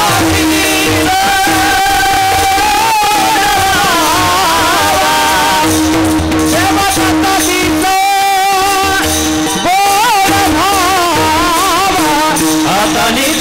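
A male voice sings an ornamented devotional melody, a Warkari kirtan chal, into a microphone. Brass taal hand cymbals clash in rhythm, and a steady held note sounds underneath.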